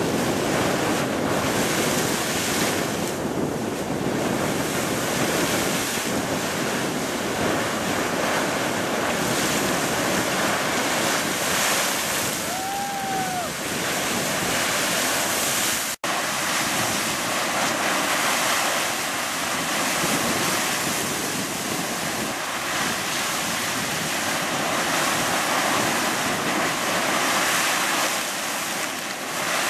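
Fountain Geyser erupting: a steady rushing of water and steam, with wind on the microphone. The sound drops out for an instant about halfway through.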